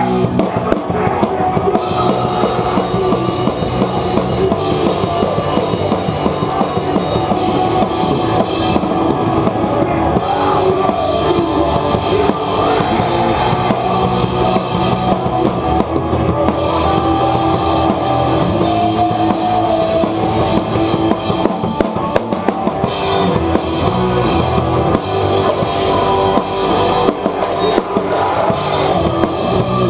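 Hardcore band playing live: distorted electric guitars and a pounding drum kit, with cymbals washing in and out in stretches of a few seconds. The drums sound close, heard from just behind the kit.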